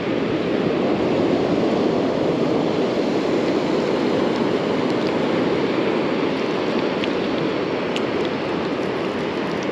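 Ocean surf washing steadily onto the beach, an even rushing noise, with a few faint ticks a couple of seconds before the end.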